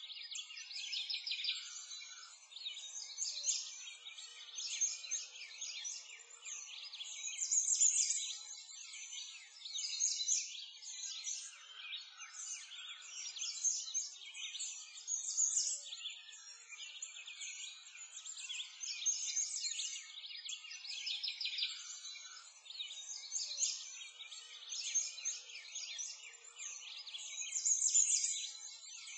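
A continuous chorus of many small birds chirping and twittering, high-pitched, with nothing low beneath it.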